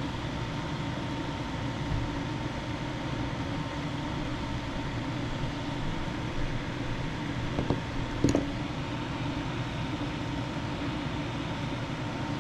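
Steady fan-like hum with a faint constant tone, with two small clicks about eight seconds in, likely from handling tools or wire.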